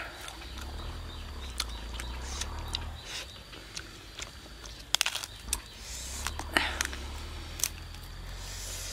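Fingers tearing apart a roasted duck: scattered sharp crackles and clicks of skin and meat being pulled off the carcass, with a quick run of clicks about five seconds in.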